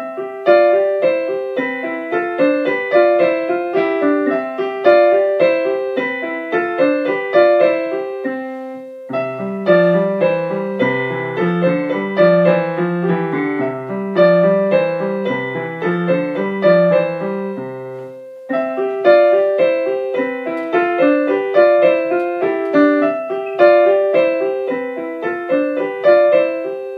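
Background piano music, a lively run of evenly struck notes, with a lower bass part joining in for the middle stretch.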